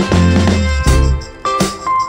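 Background music with a strong bass beat and held instrument notes.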